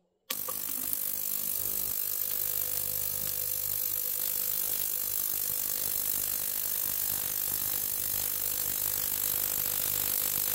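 A button click, then a small ultrasonic cleaner switches on and runs: a sudden, steady, loud hiss and buzz with a low hum and a steady mid tone underneath, from its transducer driving a water bath that holds coins, a key and a screwdriver.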